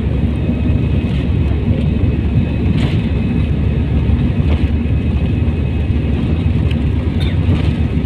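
Airliner jet engines at takeoff thrust, heard from inside the cabin during the takeoff roll: a loud, steady low rumble with a faint high whine above it.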